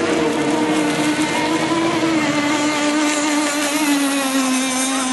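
Motorboat engine running steadily under way. Its pitch sinks slowly from about two seconds in.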